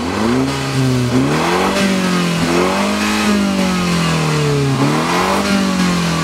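2015 MINI Cooper S's turbocharged 2-litre four-cylinder engine revving hard under acceleration. Its pitch climbs, drops back about a second in and climbs again, eases down through the middle, and rises and falls once more near the end.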